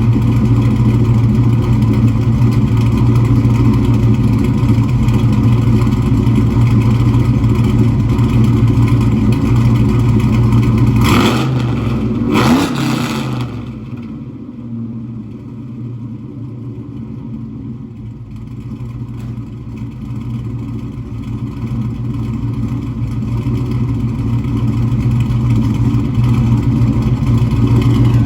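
LQ4 6.0 V8 with a BTR Stage 3 truck cam, exhausting through long-tube headers, a true dual 3-inch exhaust with an H-pipe and Venom 250 mufflers, idling steadily. It is blipped twice in quick succession about 11 and 12.5 seconds in, then the exhaust sounds quieter for several seconds before building back up to its earlier level.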